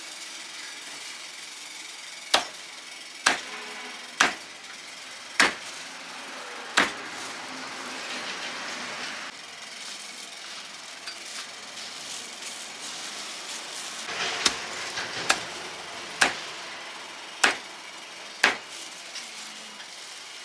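Cleaver chopping on a wooden chopping block: about ten sharp, separate strikes, roughly one a second, in two runs with a pause of several seconds between them.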